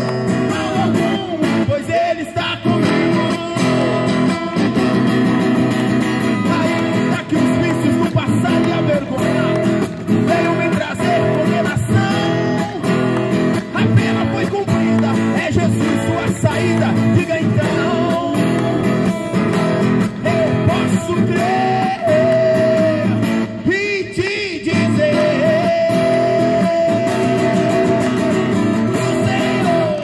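A man singing a gospel song into a microphone while strumming an acoustic guitar.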